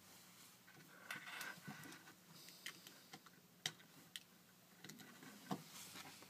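Faint scattered clicks and soft rustling of alligator clip leads being handled and clipped onto small electronic parts, with a sharper click a little past the middle and another near the end.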